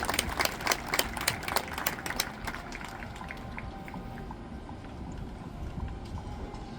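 Crowd applause, scattered hand claps thinning out over the first two to three seconds and then dying away into a faint background with a few short quiet tones.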